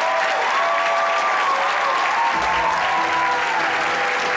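Theatre audience applauding and cheering, with whoops gliding up and down in pitch over the clapping. About two seconds in, music with held low notes and bass starts playing under the applause.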